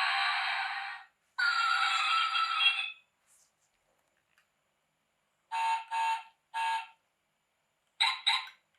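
Toy car's built-in sound module playing electronic effects through its tiny speaker: a tinny engine-like sound that stops about a second in, a second burst lasting about a second and a half, then short beeps, three together and two more near the end.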